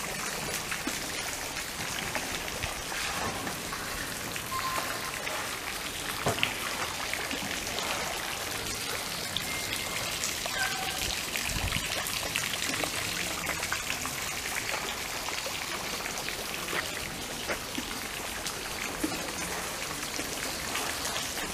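Water from a stone fountain's jets splashing into its basin: a steady splashing hiss with many small drips.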